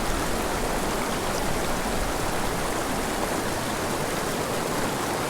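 Small mountain creek rushing and tumbling among boulders: a steady, even wash of running water.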